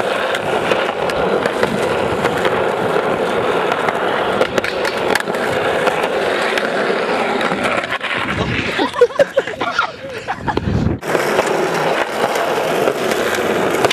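Skateboard wheels rolling over an asphalt path, a steady rumble with a few sharp clacks. The rumble is broken up for a few seconds about two-thirds of the way through, then picks up again.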